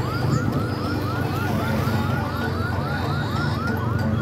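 An electronic siren sounding in quick rising chirps, about four or five a second, over a steady low rumble.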